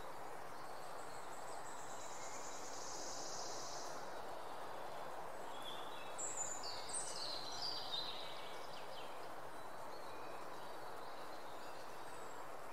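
Steady outdoor background hiss with songbirds: a high trill from about half a second to four seconds in, then a burst of high chirps around six to nine seconds in.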